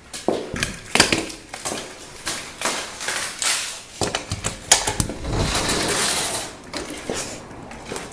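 Close, irregular crunching and scuffing of footsteps on a concrete patio, mixed with handling noise on the phone's microphone. A longer rushing scrape comes a little past the middle.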